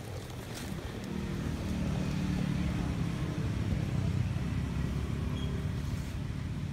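Low engine rumble of a passing motor vehicle, swelling about a second and a half in and easing off near the end.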